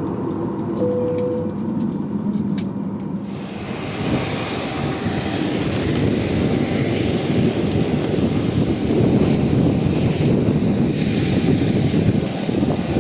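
Jet airliner engine noise: about three seconds in, a loud steady rush with a thin high whine comes in suddenly and holds.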